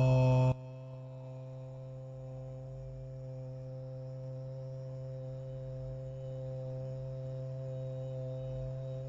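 A chanted mantra drone cuts off abruptly about half a second in. It leaves a soft, steady drone of held tones in meditation background music that slowly grows a little louder.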